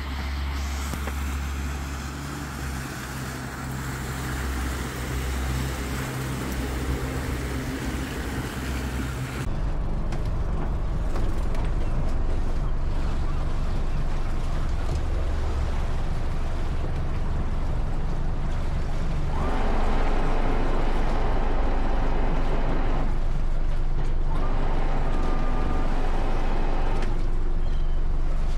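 Motor cruiser's Volvo Penta engine running steadily under way, a low continuous drone. About nine seconds in the upper hiss drops away, and twice in the second half a higher hum rises over the drone for a few seconds.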